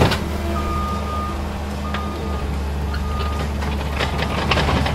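Skid steer engine running steadily while its reversing alarm beeps a few times, with some knocks and clatter near the end as it works the lawn.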